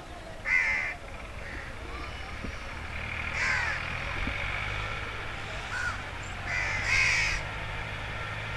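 Crows cawing: three harsh caws, about half a second, three and a half seconds and seven seconds in, over a low steady hum.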